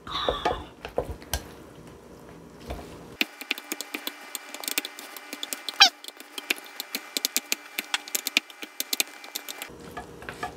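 Utensils clicking and scraping against the cookware as stir-fried instant noodles are mixed with their sauce: quick, irregular clicks with one short rising squeak about six seconds in.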